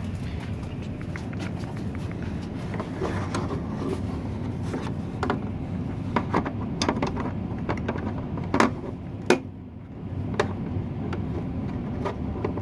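Plastic clamp pieces knocking and clicking as they are handled and fitted onto a water filter housing, with two sharper knocks a little past halfway, over a steady low rumble.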